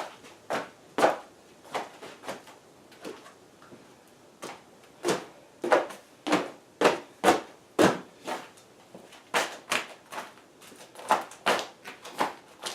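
Irregular sharp knocks and slaps, about one or two a second and loudest through the middle stretch, from a large plastic garage floor containment mat being handled and laid out on a concrete floor.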